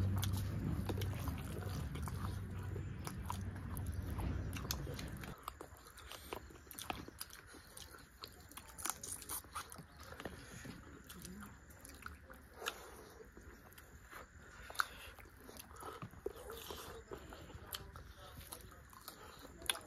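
Close-up eating sounds of chicken curry and rice eaten by hand: chewing with scattered wet clicks and smacks. A louder low hum runs under the first five seconds or so and cuts off suddenly.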